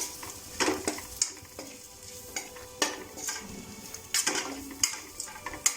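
A spoon stirring sautéed onions and spices sizzling in oil in a pan, the spoon scraping and knocking against the pan about twice a second. Coriander powder has just gone in and is being fried with the onion masala until it roasts.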